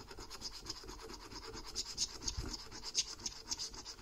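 A metal coin scraping the latex coating off a paper lottery scratchcard in rapid, rhythmic back-and-forth strokes.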